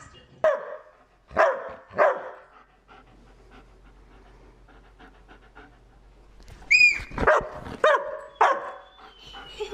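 A dog barking in short bursts: three barks in the first two seconds, a quiet pause, then a sharp high-pitched cry and three more barks near the end.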